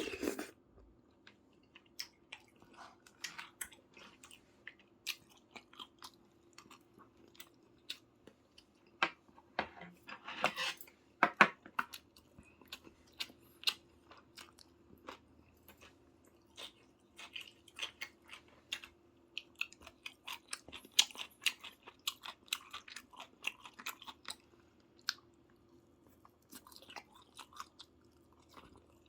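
A person chewing and eating soy-braised chicken (jjimdak), with many irregular short mouth clicks and smacks and a faint steady hum underneath.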